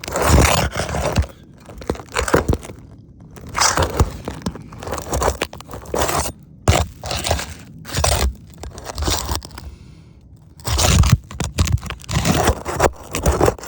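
A roofing flat bar scraping and prying under a shingle to work a roofing nail out, with irregular crunching and scraping. The shingle is so deteriorated that the nails pull through it instead of coming out clean.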